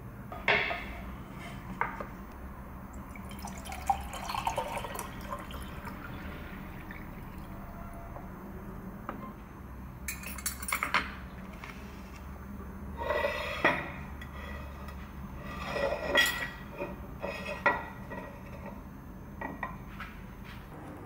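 Water poured into a drinking glass a few seconds in, then a glass, bowl and plate set down on a wooden tray and counter with sharp clinks and knocks.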